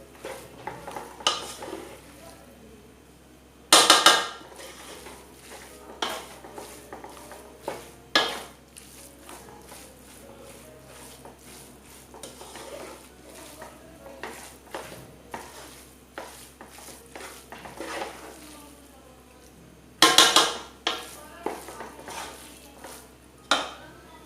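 A spoon stirring rice into frying vegetable masala in a pan: irregular scraping, clinking and knocking against the pan, with a few loud knocks about four seconds in and again about twenty seconds in, over a faint sizzle.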